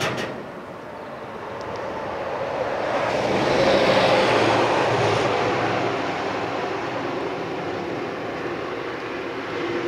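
Rushing vehicle noise with a faint hum, swelling to its loudest about four seconds in and then easing off a little; a sharp click at the very start.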